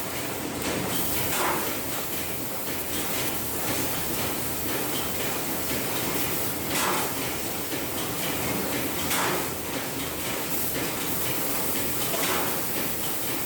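Fiber laser cutting machine working sheet metal: a steady hiss of the cutting head and its gas jet, with a few brief louder swells.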